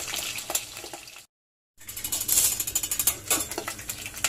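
Slabs of boiled pork belly deep-frying in hot oil in a stainless steel pot: a dense, steady crackling and spitting of the oil. The sound cuts out completely for about half a second just after a second in.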